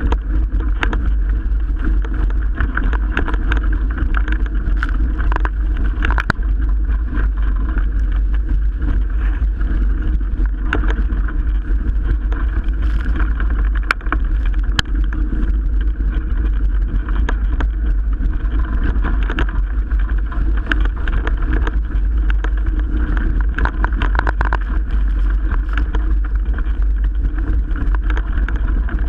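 Strong wind buffeting a small sailboat's onboard microphone with a steady deep rumble, over the rush of water along the hull at speed, with many short sharp splashes and knocks scattered throughout.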